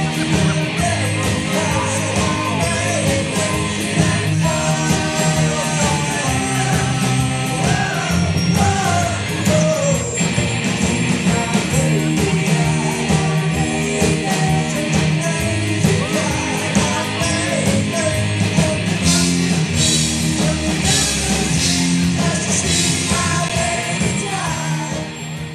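Glam rock band playing live: electric guitar, bass, drums and keyboards, with a lead vocal singing over them. The music dips near the end.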